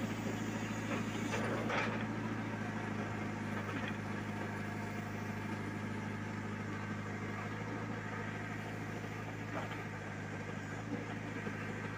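Backhoe loader's diesel engine running steadily at a constant pitch as the hydraulic arm works the bucket in the pit, with a couple of brief knocks from the bucket and soil.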